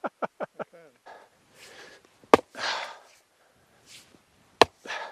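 A wooden fence post being driven in with heavy blows, two sharp strikes about two seconds apart, with hard breathing between them. A short run of laughter trails off at the start.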